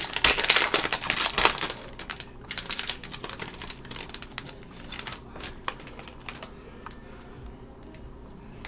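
Trading card pack wrapper being torn open and crinkled, a dense crackle for the first two seconds, then sparser clicks and rustles as the hockey cards are slid out and handled, stopping about two-thirds of the way through.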